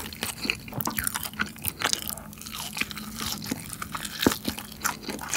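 Close-miked chewing of cheese-seasoned fries and fried chicken, with irregular crisp crunches and many small clicks.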